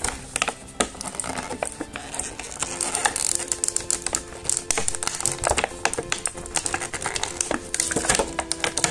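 Clear plastic blister packaging crinkling and crackling in quick, irregular snaps as hands work a small action-figure part out of it.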